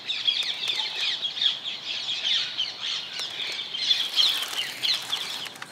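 A flock of rose-ringed parakeets calling, many short high-pitched calls overlapping in a continuous chatter.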